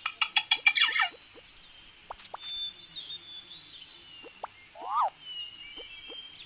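Birds chirping and whistling over a steady high hiss. A quick run of chirps comes in the first second, then scattered single chirps, and a short call that rises and falls about five seconds in.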